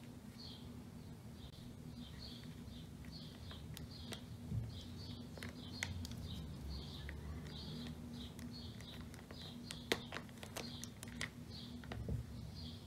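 Handling sounds of a plastic safety-eye applicator pressing safety-eye washers onto the eye posts of a crocheted amigurumi head: a few soft clicks and knocks, one sharper click late on. Faint high chirping repeats two or three times a second in the background.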